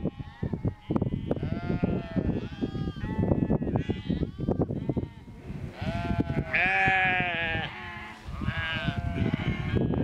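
A flock of sheep bleating, many calls overlapping, the loudest and longest about seven seconds in.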